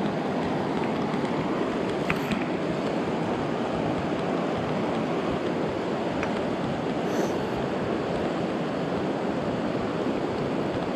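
Steady rush of river water flowing over a shallow, stony bed.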